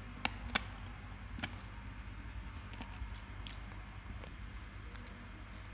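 Faint low steady hum with a few short sharp clicks: two close together near the start, one about a second and a half in, and one near the end.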